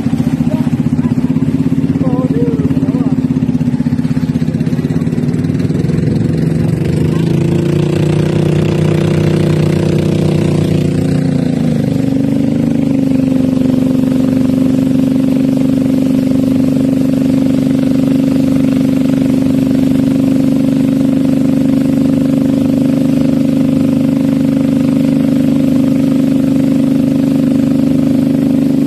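Boat engine running steadily, its pitch shifting for a few seconds around the middle as the engine speed changes, then settling to an even drone.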